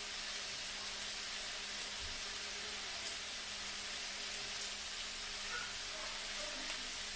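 Ground beef sizzling steadily in a frying pan, an even hiss with a low steady hum beneath and a few faint ticks.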